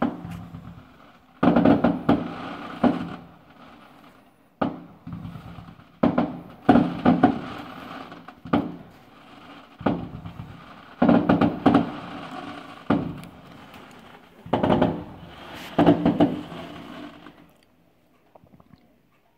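Aerial fireworks bursting in quick succession: a dozen or more sharp bangs, some in close pairs, each trailing off in a rumbling, crackling echo. They stop shortly before the end.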